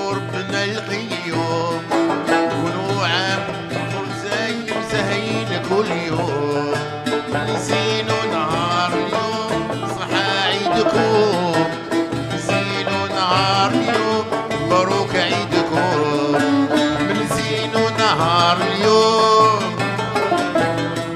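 Algerian chaabi ensemble playing: plucked lute and banjos strumming together, with violin and keyboard carrying a winding melody over a steady bass line.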